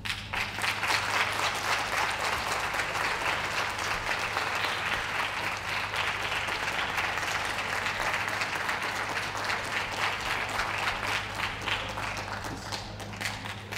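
Audience applauding, breaking out suddenly and dying away near the end.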